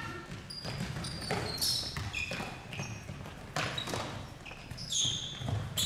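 A basketball bouncing on the hall's court floor in play, a series of irregular knocks with short high squeaks between them.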